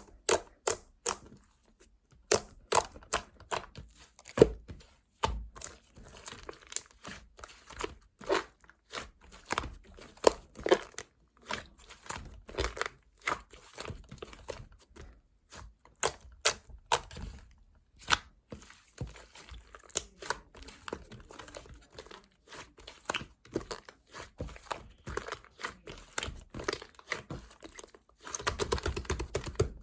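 Irregular sharp taps and clicks with crinkling, tearing rustles, and a denser stretch of rustling near the end.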